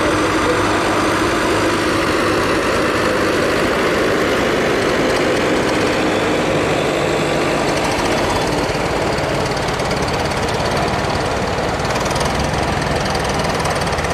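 Vintage tractor engines running steadily as the machines drive slowly past.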